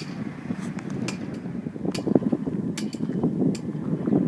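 Footsteps at a walking pace, a sharp step about every three quarters of a second, over a low rumble of wind on the microphone.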